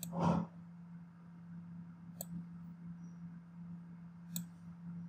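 Computer mouse clicks: three short sharp clicks about two seconds apart, over a faint steady low hum.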